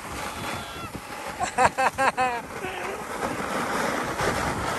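Skis sliding and scraping over groomed snow while skiing downhill, with wind on the microphone; the scraping grows louder over the last couple of seconds. Short voice sounds come about a second and a half in.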